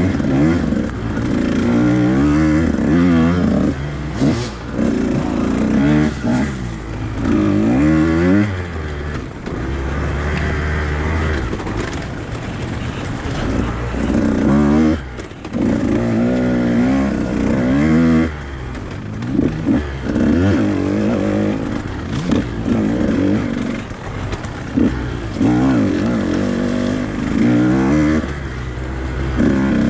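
Two-stroke enduro dirt bike engine revving hard and backing off over and over, its pitch climbing and falling with the throttle, with a brief drop-off about fifteen seconds in.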